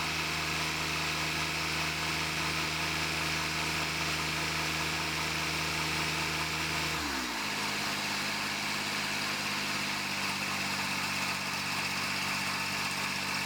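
Tractor engine with a front loader running steadily, its speed dropping to a lower idle about seven seconds in.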